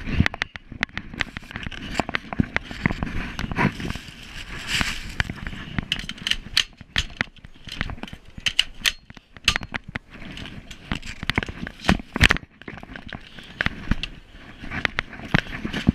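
Semi-automatic rifle firing many shots in quick, uneven strings.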